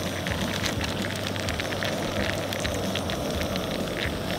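Diced raw salmon sizzling in hot melted butter in a skillet on a camp stove: a steady, dense crackle of fine pops over a low hum.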